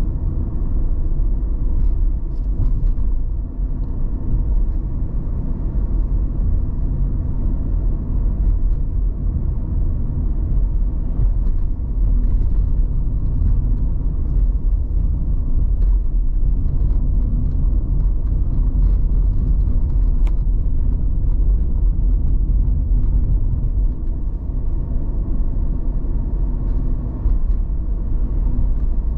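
Car being driven along a road: a steady low rumble of engine and tyres that holds even throughout.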